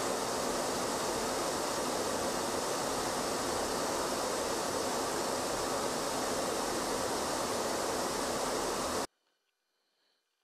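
A loud, steady rushing noise, even in pitch and level, that cuts off abruptly about nine seconds in.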